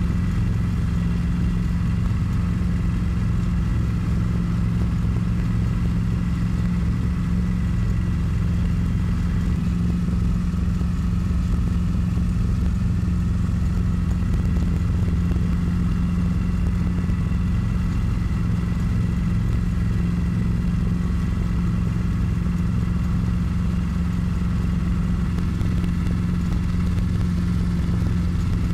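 Light helicopter's engine and rotor running steadily, heard from inside the cabin as it moves low over the runway: a constant drone with a strong low hum and fainter higher whines.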